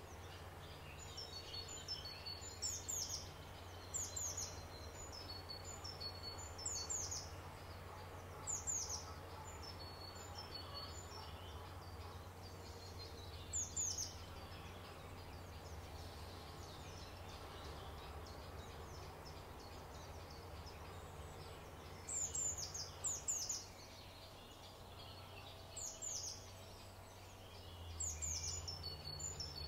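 Wild birdsong: a bird repeating a high, downward-sweeping call every second or two, with quick twittering notes between, over a steady low rumble. The calls thin out for several seconds in the middle and pick up again near the end.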